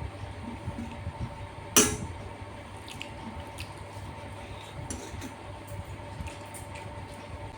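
Eating sounds: wet squishing and smacking of rice and curry eaten by hand, with small clicks and one sharp clink about two seconds in, over a steady low hum.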